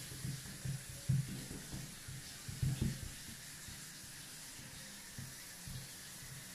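Soft, muffled taps on a towel laid on a table, made as a foley imitation of a centipede walking. The taps come several a second in a quick irregular patter for the first three seconds, then thin out and grow fainter.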